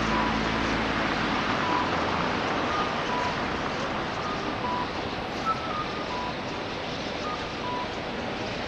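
A large flock of white-cheeked starlings chattering all at once in a dense, steady din.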